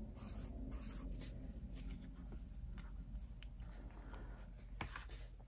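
Faint scratching of a pen writing figures on a paper planner page, with a few light taps near the end.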